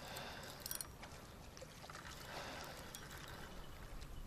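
Faint water splashing and sloshing from a hooked wild carp fighting near the bank, with a short cluster of sharp clicks under a second in.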